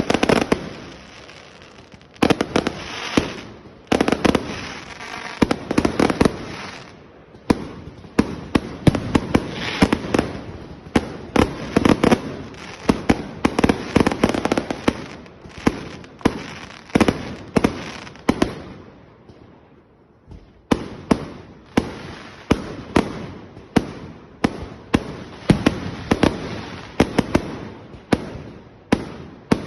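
A fireworks display: many firework explosions going off in quick, irregular succession, sharp bangs overlapping with rolling booms and crackle, with a brief lull about two-thirds of the way through.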